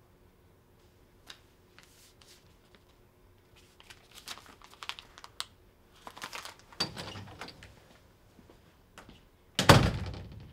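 Faint clicking and crinkling of a small object handled in someone's hands, in scattered bursts, then one sudden loud thump near the end that dies away in the room.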